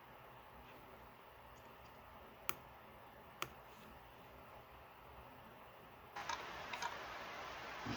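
Two sharp, faint clicks about a second apart. From about six seconds in, a louder rustling hiss starts, with a few small clicks in it.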